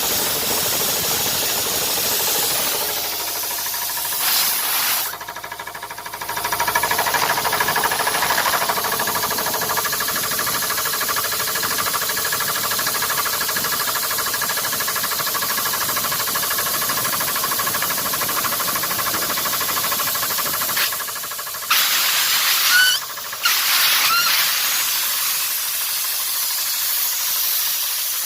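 Compressor running with a steady hissing, an odd noise likened to farting. The sound drops away briefly about five seconds in and twice more near the end, where a few short rising squeaks come through.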